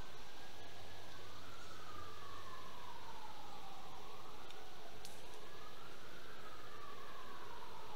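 Siren wailing, its pitch slowly rising and falling in overlapping sweeps of a few seconds each.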